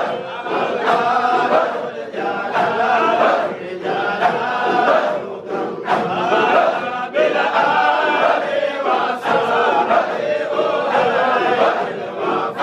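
A large group of men chanting dhikr together in repeated short phrases, many voices at once.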